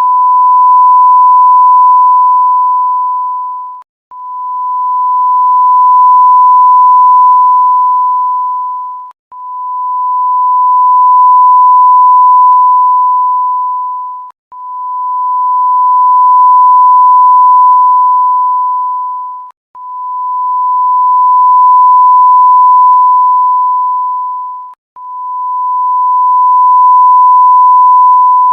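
Censor bleep sound effect: a single pure, steady tone repeated as long beeps of about five seconds each, each swelling up and fading away, with very short gaps between them.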